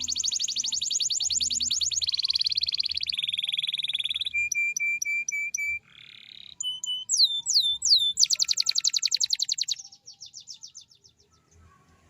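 Domestic canary singing a string of song phrases. It opens with long, very rapid rolling trills, then gives a row of short repeated notes and several down-slurred whistles, and ends with another fast trill that softens and fades near the end.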